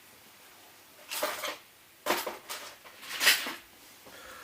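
Small metal tools clinking and scraping, in three brief bouts about a second apart.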